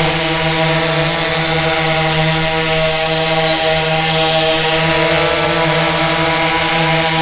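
DJI S1000 octocopter hovering low just after takeoff: its eight propellers and brushless motors make a loud, steady buzzing hum that holds one pitch.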